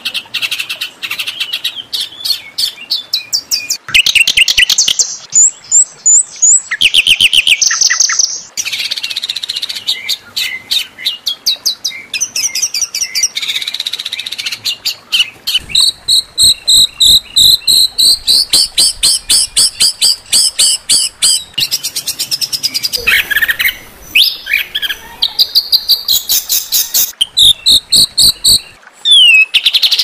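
Songbird tutor recording of harsh, rapid-fire song phrases: fast runs of repeated sharp notes and trills, switching to a new phrase every few seconds. It is the kind of "tembakan kasar" (rough, shot-like phrases) used to teach competition songbirds.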